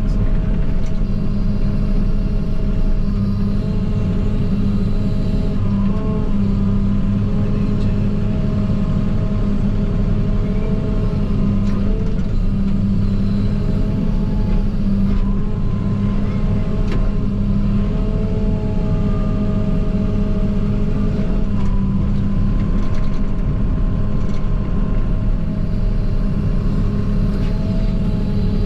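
JCB 48Z-1 mini excavator heard from inside its cab: the diesel engine runs steadily under working load, with higher whining tones that waver and shift in pitch as the machine works.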